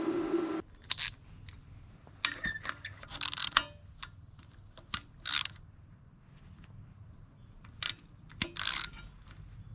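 A steady power-tool run cuts off about half a second in. After that, metal tools clink and scrape against metal in short, uneven strokes, working at a stuck bolt on the mower deck.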